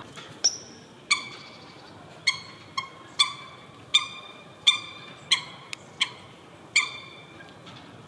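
Eurasian coot calling: a series of about a dozen short, sharp, nasal notes at an uneven pace, roughly one every half second to a second.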